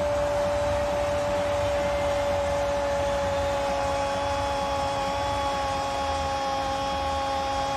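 A Spanish-language football commentator's long drawn-out goal cry, one held note sustained without a break, over steady stadium crowd noise.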